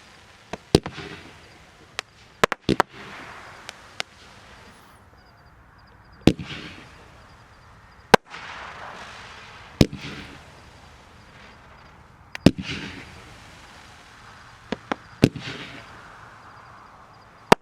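Low-noise fireworks cake firing its shots: a sharp pop every two to three seconds, sometimes two close together, each followed by about a second of crackling.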